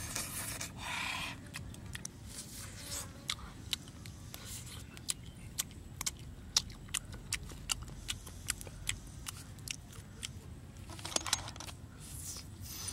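A person eating cooked fish with their fingers. It is a run of sharp, irregular wet mouth clicks and smacks as they chew and suck the flesh off the fish bones, with a few short hissy bursts near the start and near the end.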